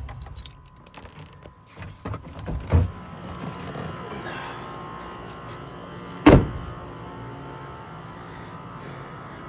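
A vehicle door is unlatched and pushed open with a few clicks and knocks, then slammed shut about six seconds in with one loud bang. The engine runs at idle underneath.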